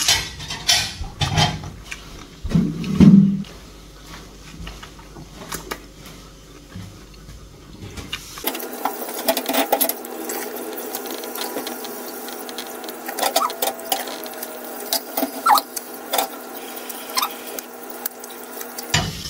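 A person eating a ripe, peeled mango held in the hands: wet mouth sounds of biting, sucking and chewing the soft flesh, a run of small clicks and smacks. About eight seconds in, the low end drops away and a steady hiss comes up under the clicks.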